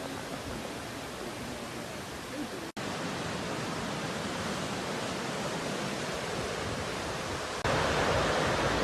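Steady rushing noise of the flood-swollen Yellowstone River's fast, muddy water at record-high levels. It drops out for an instant about a third of the way in and steps up louder near the end.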